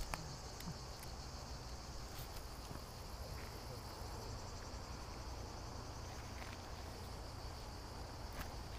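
Steady, high-pitched chorus of insects trilling in the scrub, with a few faint clicks.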